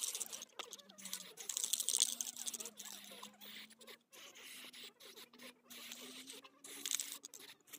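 Aerosol spray-paint can hissing in short bursts, mostly in the first two seconds or so and once more briefly near the end, with clicks and taps of the can and baton being handled.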